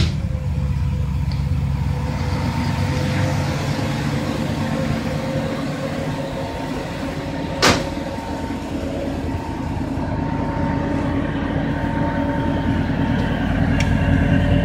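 Big old carbureted car engine idling steadily just after being started, over the steady high tone of a central vacuum blower drawing off its exhaust. One sharp knock about halfway through.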